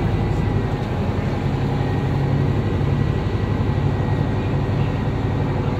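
Cabin sound of a 1996 New Flyer D40LF bus with a Detroit Diesel Series 50 engine, running along at a steady pace: an even engine drone with a faint thin high whine above it.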